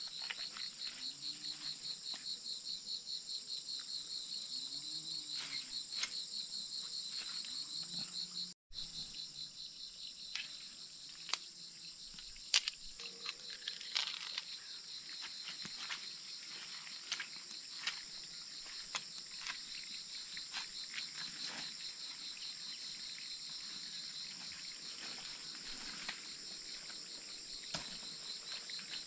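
Steady chorus of forest insects: a high, rapidly pulsing chirring with a second steady high whine under it, cut off by a brief dropout about a third of the way through. Early on a low call rises and falls every two to three seconds. Scattered small clicks and knocks come in the second half.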